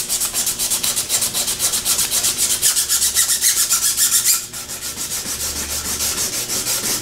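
80-grit sandpaper rubbed back and forth along the steel shaft of a starter armature held in a vise, in quick, even strokes. It turns quieter and steadier about four and a half seconds in.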